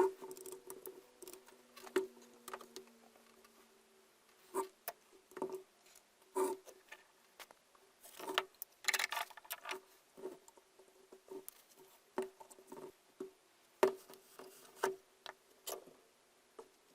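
Irregular clicks, taps and knocks of small metal parts and tools being handled while an old hammer drill is taken apart and serviced, some in quick clusters, with a faint ring after many of them.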